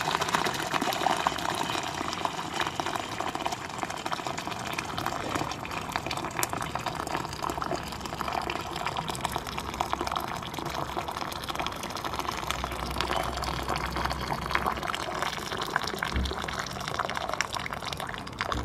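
Boiling water poured in a steady stream into a stainless steel bowl, splashing and churning as the bowl fills; the pour eases off near the end.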